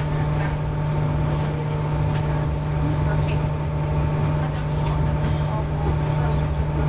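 Steady rumble of a moving passenger train heard from inside the carriage, with a constant low hum over the noise of the running gear.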